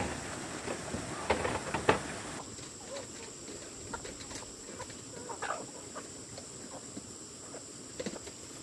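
Chickens clucking now and then, with a few sharp knocks in the first two seconds.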